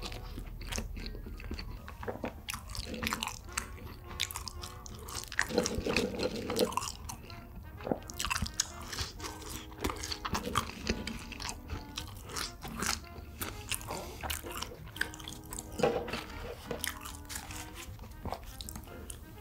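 Close-miked eating sounds: crunching, biting and chewing of food, with many sharp clicks all through.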